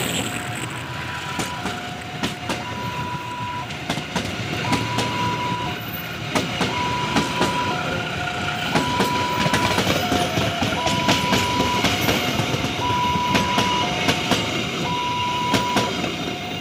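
Passenger coaches rolling past, their wheels clacking over the rail joints. Over it, an electronic two-tone warning alarm repeats a low note and then a high note about every two seconds, typical of a railway level-crossing signal.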